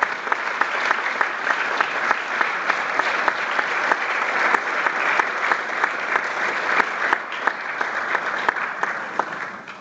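Audience applauding: dense, steady clapping that thins out and stops right at the end.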